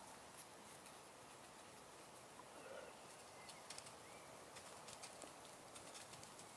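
Near silence: quiet outdoor background with faint, scattered clicks.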